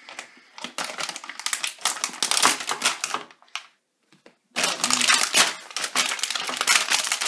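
Foil wrapping crinkling and crackling as it is handled and pulled open around a power adapter, in dense irregular bursts, with a pause of about a second midway.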